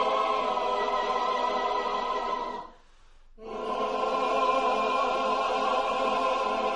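A large choir of women's and men's voices singing held chords together. The singing breaks off for under a second about three seconds in, then comes back in on a held chord.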